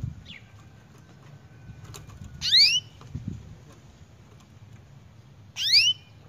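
Canary giving two loud rising calls about three seconds apart, each a quick upward sweep, with a faint short chirp near the start over a low steady hum.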